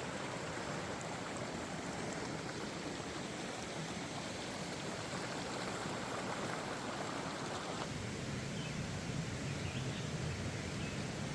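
Steady rushing of a flowing mountain stream. The mid-range part of the rush drops off abruptly about eight seconds in.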